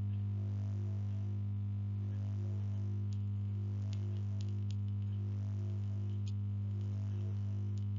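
Steady electrical mains hum with a buzz of evenly spaced overtones, and a few faint clicks scattered through the middle and end.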